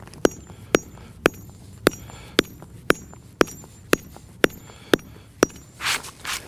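Bush hammer (boucharde) striking a stone block in a steady rhythm of about two sharp, ringing blows a second, dressing the face to erase the grinder's cut marks. A brief rustle comes near the end.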